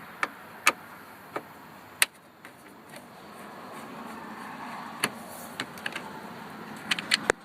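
Phillips screwdriver working on the headlight switch's mounting screws in a plastic dashboard: a scatter of sharp clicks and taps, with a quick cluster of them near the end.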